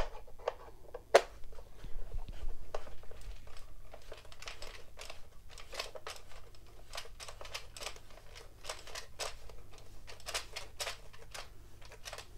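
Plastic leg being screwed by hand into the plastic base of an Addi knitting machine: a run of irregular clicks and scrapes as the threads turn and the parts knock together, with one sharper click about a second in.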